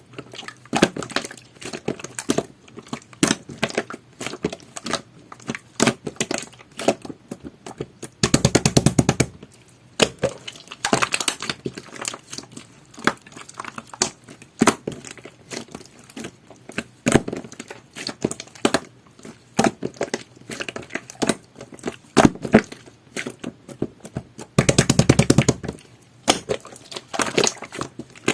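Pink jelly-textured slime being squished and pressed by hand, giving irregular sticky clicks and pops, with two short stretches of fast crackling, about eight seconds in and near the end.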